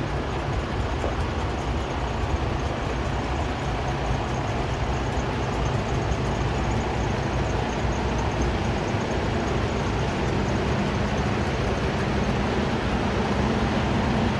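Vacuum excavator truck's diesel engine running steadily, a low hum that grows slightly louder near the end.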